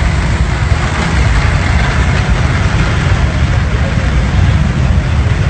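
Steady vehicle engine and street traffic noise with a heavy low rumble.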